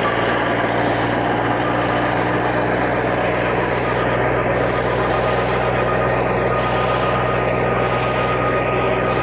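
A New Holland farm tractor's diesel engine running steadily under load as it pulls a rear-mounted rotary tiller, whose blades churn through dry soil. A constant engine hum sits under a continuous rushing, grinding noise.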